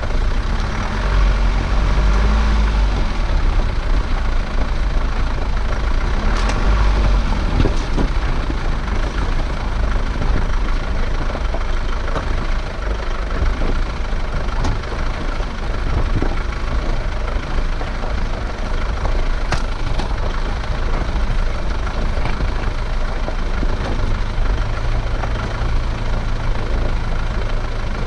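SsangYong Actyon Sports 4x4 ute driving slowly over a stony riverbed: steady low engine rumble and tyre noise on the gravel, with a few sharp knocks.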